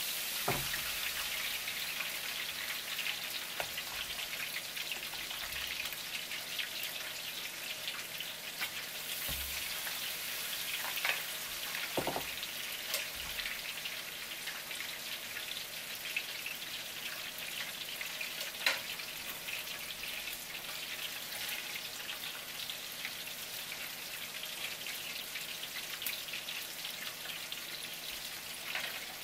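Battered conger eel tempura sizzling and crackling steadily in hot deep-frying oil, with a few sharp clicks now and then.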